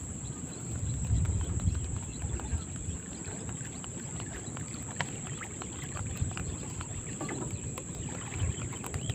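Wind rumbling on the microphone over a steady high-pitched insect drone, with scattered light clicks. The rumble is strongest a second or two in.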